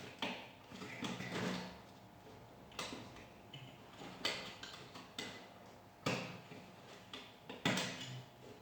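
Scattered sharp clicks and knocks of objects being handled, five or so spaced a second or two apart, over a faint steady hum.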